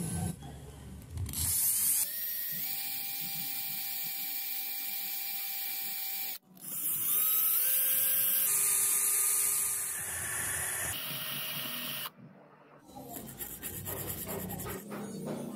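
Electric drill running a twist bit into a brass fitting. The motor spins up with a rising whine and holds steady, stops briefly about six seconds in, then starts again, its pitch dropping as the bit cuts into the brass. Light scraping and handling sounds follow near the end.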